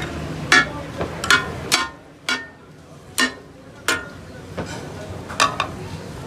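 Metal spatulas striking and scraping a hot iron tawa as brain masala takatak is chopped: a string of sharp, ringing clangs at an uneven pace.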